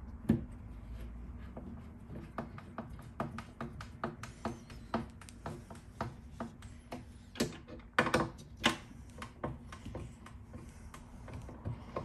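Socket driver working the mounting nut of a cam lock on a cabinet door: a long run of sharp metal clicks and taps, roughly two or three a second, with a cluster of louder knocks about two-thirds of the way through.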